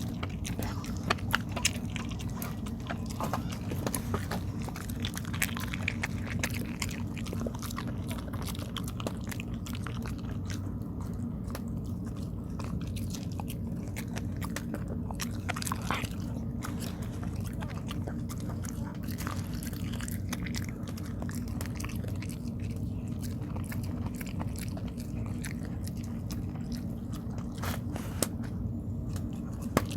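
Dog chewing sticky rice cake (tteok): irregular wet chewing clicks and smacks, with a few sharper bites about a second in and near the end, over a steady low hum.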